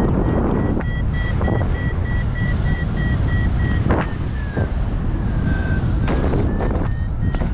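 Airflow buffeting the microphone during a paraglider flight, the loudest sound throughout, with a flight variometer beeping in quick short pulses at a high pitch; the beeps step up in pitch about a second in and slide down around the middle, as the climb rate changes in lift.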